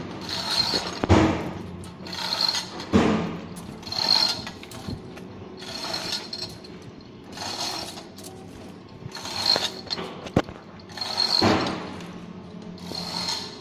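Manual chain hoist being hauled hand over hand to lift a sluice gate. The chain rattles through the block with ratcheting clicks in rhythmic surges, about one every one and a half seconds.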